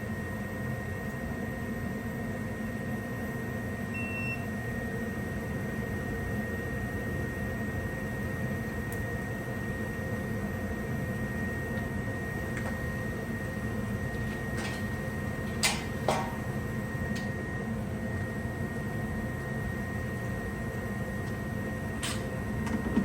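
Gas furnace running with its blower fan, a steady hum with a faint high whine over it. A few sharp clicks come about two thirds of the way through and again near the end.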